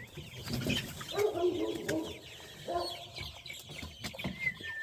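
Chickens clucking, with a drawn-out call about a second in and a shorter one near three seconds, over faint high chirping.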